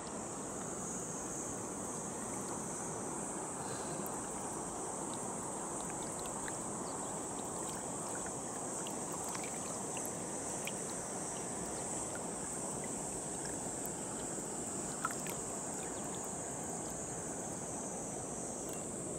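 Steady rush of shallow stream water with a continuous high-pitched insect drone over it. A few faint ticks, and one short knock about 15 seconds in.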